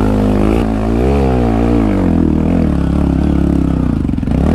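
2015 Honda Grom's 125cc single-cylinder four-stroke engine revving up and down under load on a steep dirt hill. Its pitch dips about four seconds in, then rises again.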